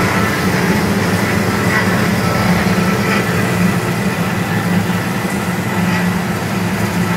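Baileigh BS23SA semi-automatic horizontal metal-cutting bandsaw running under power, its blade feeding down through a wooden block. It makes a steady machine hum with a faint whine above it, running real nice, real quiet.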